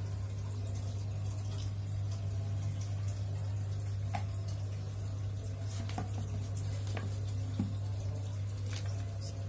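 Steady low hum with a few faint, scattered drips of water.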